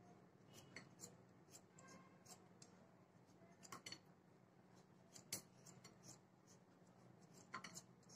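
Faint, irregular scrapes and clicks of a kitchen knife paring the skin off a frozen mango, with bits of peel dropping onto a glass plate. The sharpest click comes a little past halfway.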